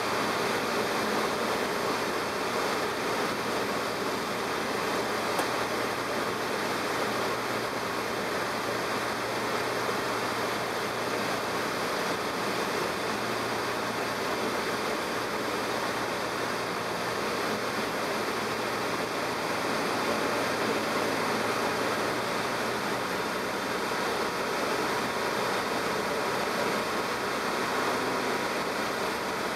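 Steady drone of a light training aircraft's engine and propeller, heard inside the cockpit with airflow noise, holding even on final approach to the runway.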